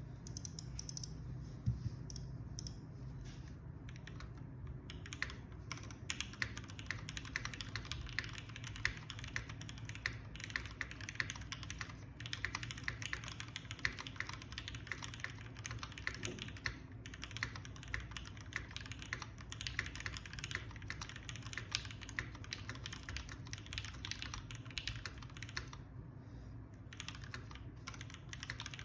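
Typing on a Lamy TKL mechanical keyboard with lubed Gateron Mizu Mink switches on an aluminium plate, O-ring mounted, with GMK keycaps. A few scattered keystrokes give way to steady, fast typing about five seconds in, with a brief pause near the end.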